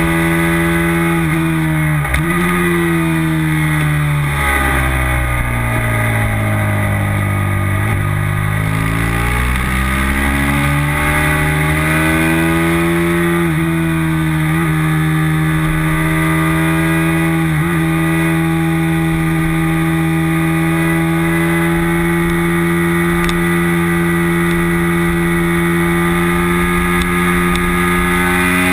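Racing motorcycle engine heard from on board at speed. Revs fall with downshifts about 2 and 8 seconds in, then climb again with quick upshifts about 13, 15 and 18 seconds in. For the rest of the lap segment the engine is held at steady high revs.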